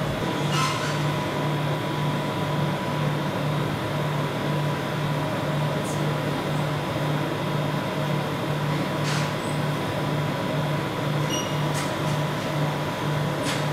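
Steady machine hum from the refrigeration unit of a cold-plate ice cream roll machine, a low tone throbbing about twice a second under a thin whine, with a few faint ticks.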